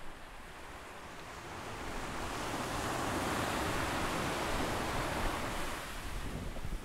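Ocean surf washing onto a sandy beach: a steady hiss and rumble of breaking waves that swells over the first few seconds and then holds.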